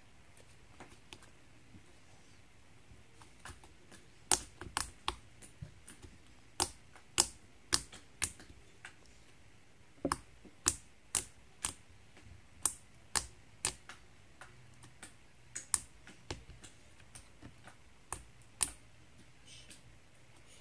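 Freezer-chilled slime, still soft, being poked and squeezed by fingers, giving sharp clicks and pops from trapped air. The clicks begin about four seconds in and come in irregular runs of several a second with short pauses between.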